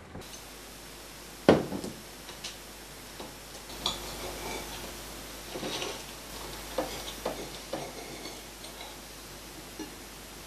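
Cutlery and crockery at a table: one sharp clack about a second and a half in, then scattered light taps and scrapes of a knife on a plate.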